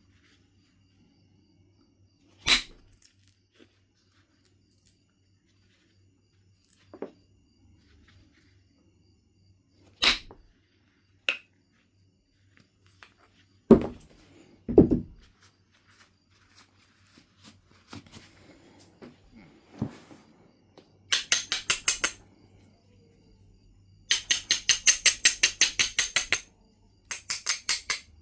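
Knife River flint being knapped: several single sharp percussion strikes on the stone, a few seconds apart. Later come runs of quick, rhythmic scraping strokes, like an abrader rubbing the edge to prepare striking platforms.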